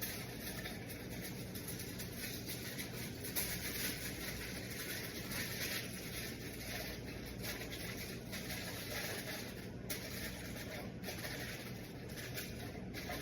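Aluminium foil crinkling and crackling in irregular bursts as it is pressed over a glass dish, over a steady low hum.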